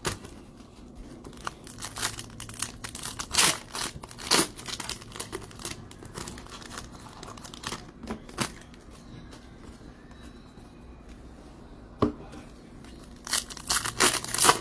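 Plastic packaging being handled, crinkling and tearing in irregular short bursts, with a cluster of louder rustles near the end.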